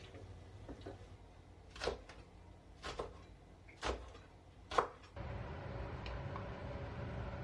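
Four sharp knocks of kitchen work, about a second apart, then a steady low hum with a faint steady tone from about five seconds in.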